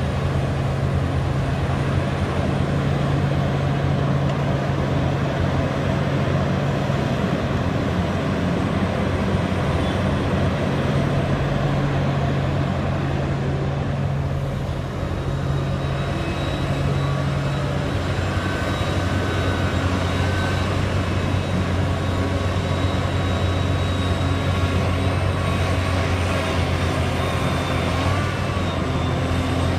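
Liebherr 984 hydraulic excavator's diesel engine running steadily under working load. Its note drops lower about halfway through, and a faint high whine joins it.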